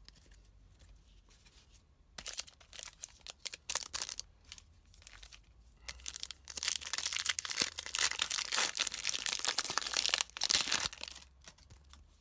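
Foil trading-card pack wrapper crinkling and being torn open: short crackles about two seconds in, then a longer, louder stretch of tearing and crinkling from about six to eleven seconds.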